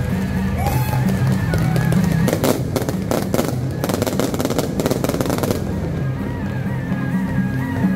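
Fireworks going off in a rapid crackle of sharp bangs over steady background music; the bangs thin out about five and a half seconds in while the music carries on.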